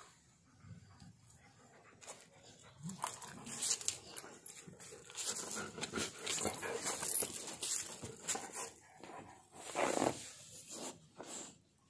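A Siberian husky and a pit bull play-biting: quiet at first, then a few seconds of irregular snapping, mouthing and scuffling sounds, busiest in the second half.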